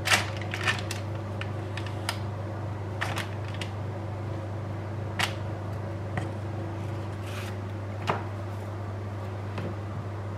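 Banana bread batter being scraped out of a plastic mixing bowl into a parchment-lined loaf tin: scattered short scrapes, taps and paper rustles, the loudest right at the start, over a steady low hum.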